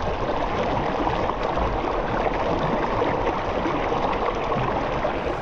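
River water rushing steadily, a continuous even splashing hiss.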